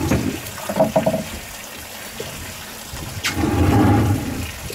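Rushing water and wind noise on an open boat at sea, with low rumbling surges about half a second in and again from about three seconds in.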